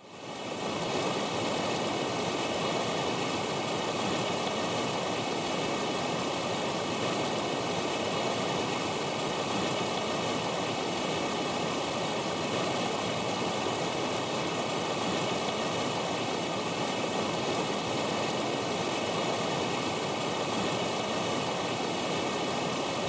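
Water of a rocky stream rushing steadily, fading in from silence over the first second.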